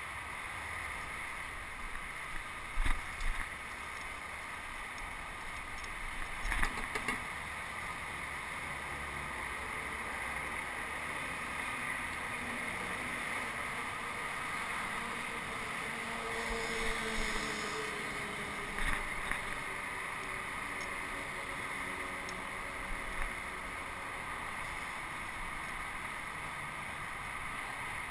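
Steady rush of wind and rolling noise on a camera riding along on a bicycle, broken by a few sharp knocks and rattles, the loudest about three seconds in.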